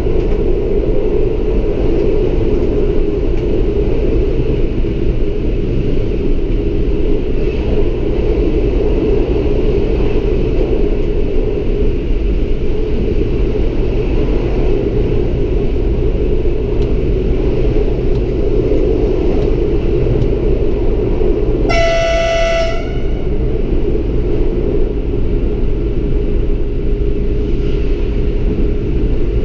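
Lint 41 diesel railcar running at speed, heard from the cab: a steady rumble of engine and wheels on the rails, with one short horn blast about 22 seconds in.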